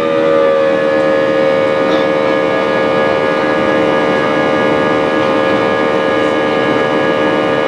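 Airbus A320's IAE V2500 turbofan heard from inside the cabin during the climb: a steady drone with several held tones over a rushing noise. The tones dip slightly in pitch about half a second in, then hold steady.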